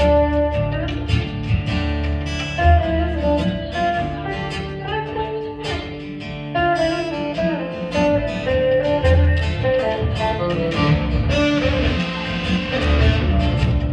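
A live contra dance band playing an instrumental dance tune, with strummed guitar and a moving bass line.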